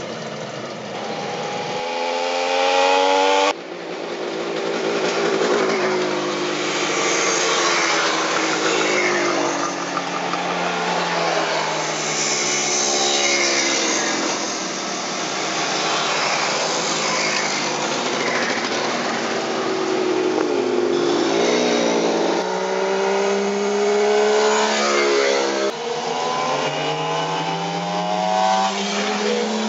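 Kawasaki 750 H2 two-stroke triple motorcycles riding past one after another, their engines rising and falling in pitch as they rev through the gears and go by. The sound breaks off abruptly a few times as one pass gives way to the next.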